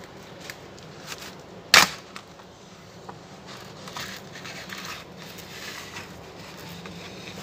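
Hands handling the plastic backlight sheets of an opened laptop LCD panel: light rustling and small clicks, with one sharp click just under two seconds in.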